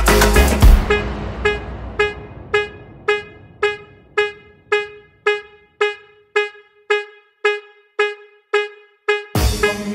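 Background music: the full beat drops out about a second in, leaving a single horn-like note repeating evenly about twice a second, and the full track comes back in near the end.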